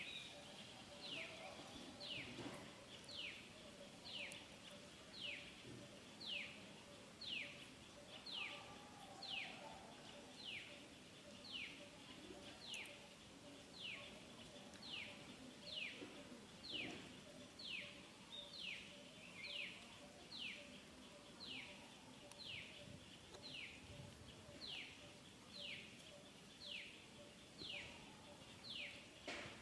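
A bird repeating a short, falling whistled note about once a second, faint against the outdoor background.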